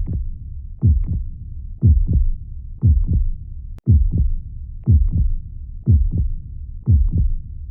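Heartbeat, a steady double thump (lub-dub) about once a second over a low continuous rumble. There is a brief break about four seconds in.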